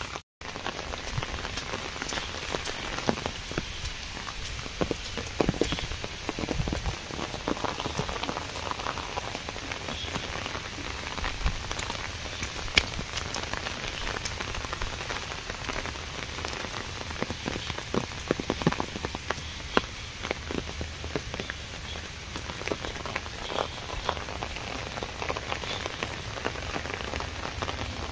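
Steady rain falling, with many scattered drops striking close by.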